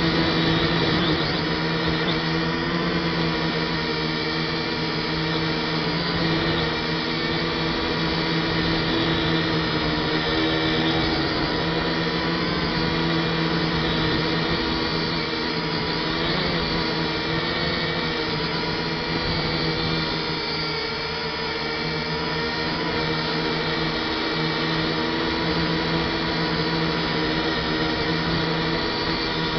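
Steady whine of an F183DH toy camera quadcopter's motors and propellers in flight, heard close up on its own camera, several pitches together with the pitch wavering now and then as the motors fight strong wind.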